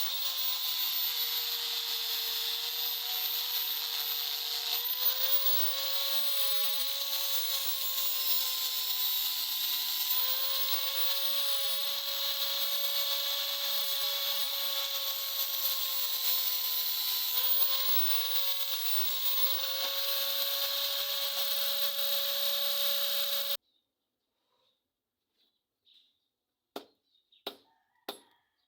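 An electric grinder runs on the steel of a file. Its motor pitch sags and recovers several times as it is pressed into the work. It stops abruptly, and a few sharp taps follow near the end.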